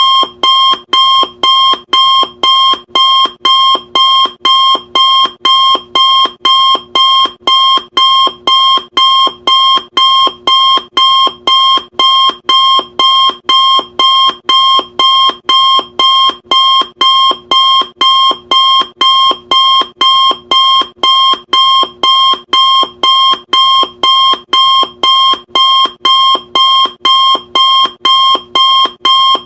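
Electronic countdown timer alarm beeping evenly and loudly, about two sharp beeps a second, the alert that a timer has run out.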